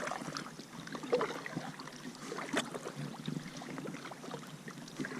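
Faint water lapping and trickling around a kayak on the water, with a few small scattered clicks.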